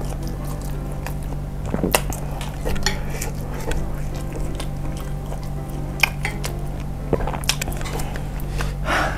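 A metal spoon clinks and scrapes against a ceramic dish as meatballs are scooped out of chili broth, with a few sharp clicks spread through. Chewing sounds come in between.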